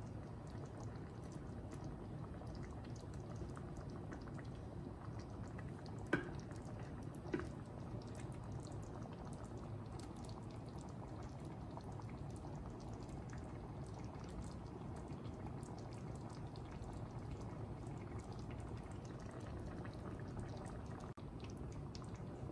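Thick beef tomato sauce bubbling in an electric pot heated to 350°F: a steady bubbling with many small pops. Two short knocks about six seconds in and again a second later.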